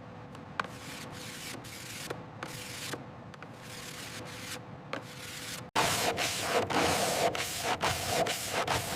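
Repeated rubbing strokes on a surface over a steady hiss, in an irregular rhythm. About six seconds in it cuts abruptly to a louder, faster scrubbing.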